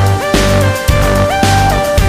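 Background music: a looping electronic tune with a steady beat, held notes changing about twice a second over a pulsing bass.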